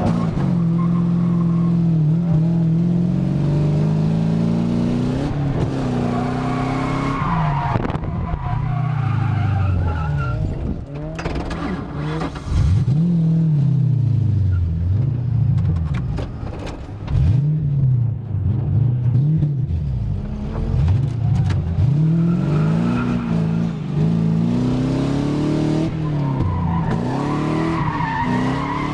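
A drift car's engine revs hard and drops back again and again, its pitch swinging up and down many times while the tyres skid.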